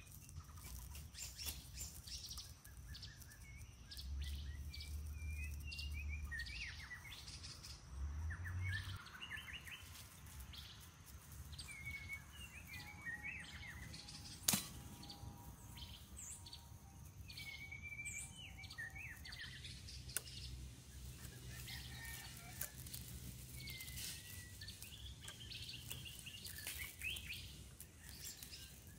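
Small birds chirping and calling over and over, with a single sharp click about halfway through.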